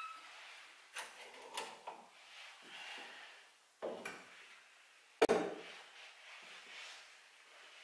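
Metal door of a small electric heat-treating oven being swung shut and latched: a few light metal clicks and clunks, with a sharper knock about five seconds in.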